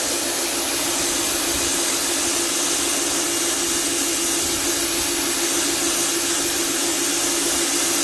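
WHOLESUN 3000 PSI electric pressure washer running with the trigger held, its 25-degree fan spray hissing steadily against concrete over the steady hum of the electric pump motor.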